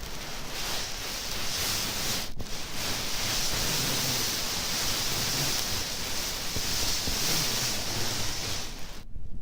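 Steady hiss of warm air blowing from an air conditioner running on heat, with a slight low rumble. It breaks off for an instant about two seconds in and cuts off shortly before the end.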